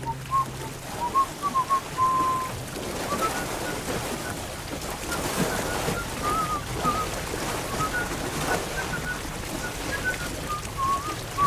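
Short, high chirping notes that come and go throughout, one held a little longer about two seconds in, over a steady wash of gentle waves on a shore.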